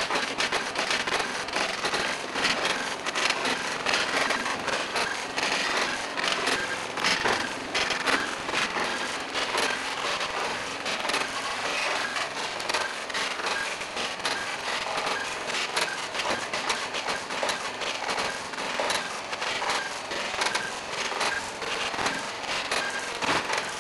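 Snack packaging machine running, with a continuous crackling rattle of dry snacks tumbling through it: dense, irregular small clicks and clatters.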